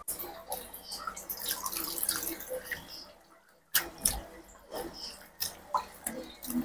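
Water splashing and dripping in a plastic basin as hands rub and swish a bunch of green onions clean, in irregular sloshes with a brief break a little past three seconds in.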